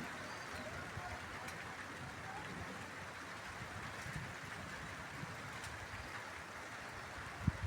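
Light rain falling: a steady, even hiss, with irregular low rumbles and a few low bumps near the end.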